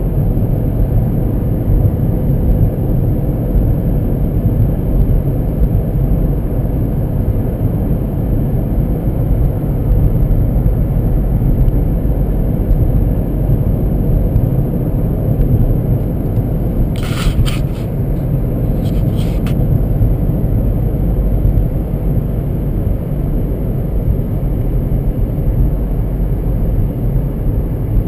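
Steady road and engine rumble inside a 2012 Honda Civic's cabin while cruising at about 50 mph. A few brief light clicks come about two-thirds of the way through.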